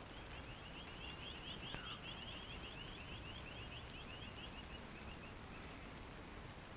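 Steady light rain hiss with a bird giving a rapid chattering run of short high notes that slows and fades after about five seconds. A single sharp tick about two seconds in.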